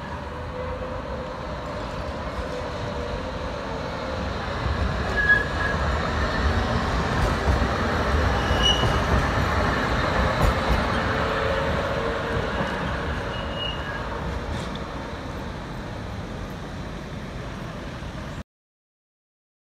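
A Crotram TMK 2200 low-floor tram passing along street track: a rumble of wheels on rails and running gear that grows louder, peaks as it goes by and fades, with a few brief high squeaks. The sound cuts off abruptly near the end.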